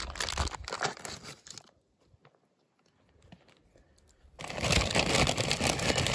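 Plastic food packaging crinkling and tearing as it is handled and opened, in two spells separated by an almost silent gap of about two seconds.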